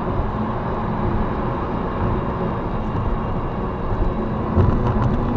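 Steady road and tyre noise of a car cruising at highway speed, heard inside the cabin, with a brief louder low rumble about four and a half seconds in.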